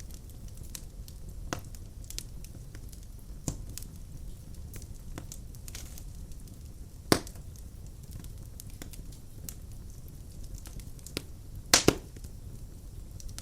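Wood-burning fireplace crackling: a steady low rumble of the fire with frequent sharp pops and snaps. The loudest pop comes about seven seconds in, and a double pop comes near the end.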